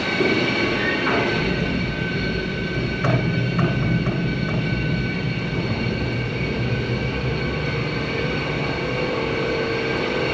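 Canal lock gate machinery running as the lower lock gates swing open: a steady mechanical hum with a whine of several held tones, and a few clanks about three to four seconds in.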